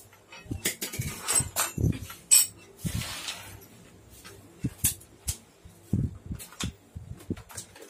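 Irregular clinks, clicks and knocks of small metal parts, bolts and wrenches being handled against a plastic wheel hub and a tile floor during balance-bike assembly.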